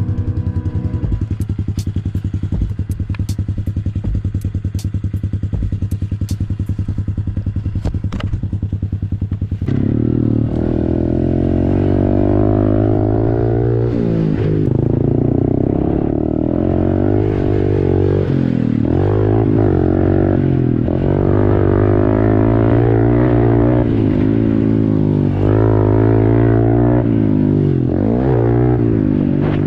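Honda CRF110 pit bike's small single-cylinder four-stroke engine running steadily at low revs, with a few sharp clicks. About ten seconds in it gets louder and revs up and down over and over.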